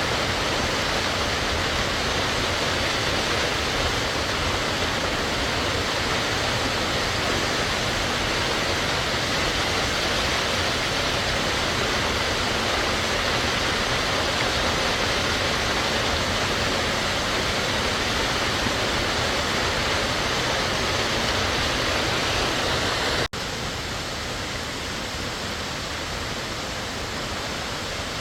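Warm Springs Falls pouring, a steady rushing roar of falling water. About three-quarters of the way through it cuts abruptly to a slightly quieter, duller rush.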